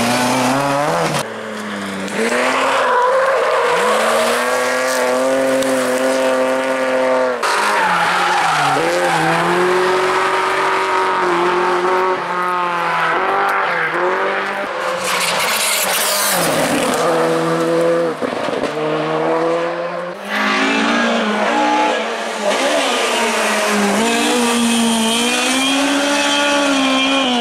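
Rally car engines revving hard, pitch rising and dropping through gear changes as the cars brake for and power out of tarmac corners. Several cars are heard one after another, the sound changing abruptly between them, with a stretch of harsh hiss about halfway through.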